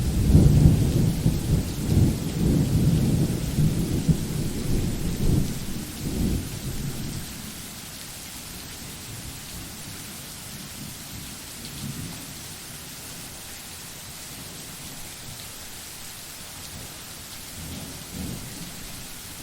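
Thunderclap rumbling loudly and rolling over steady rain for about seven seconds, then dying away to rain, with faint distant rumbles of thunder around twelve and eighteen seconds in.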